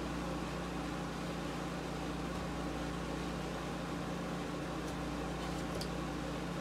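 5000 BTU window air conditioner running with a steady hum of its fan and compressor. A few faint rustles near the end as the insulation strip is pushed into the gap above the unit.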